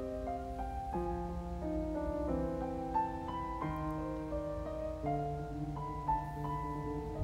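Slow, quiet piano music, with single notes and chords held and changing at an unhurried pace.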